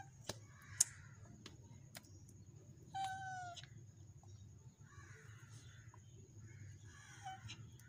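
A cat meows once, a short call falling slightly in pitch about three seconds in, then gives a fainter, briefer meow near the end.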